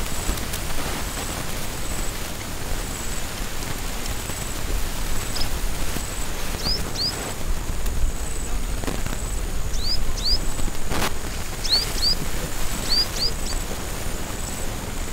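Steady rush of wind noise with a bird giving short upward-sweeping chirps, mostly in pairs, from about halfway through, over a faint high pulsing tone. There is a single sharp click about eleven seconds in.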